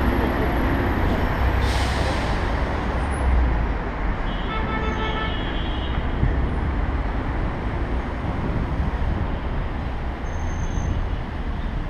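City road traffic heard from a moving bicycle: a steady dense rumble of passing cars and buses. A short hiss about two seconds in, and a brief high-pitched tone about four seconds in lasting under two seconds.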